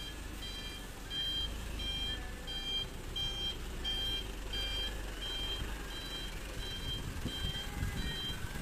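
Dump truck's reversing alarm beeping about twice a second over the low, steady run of its diesel engine.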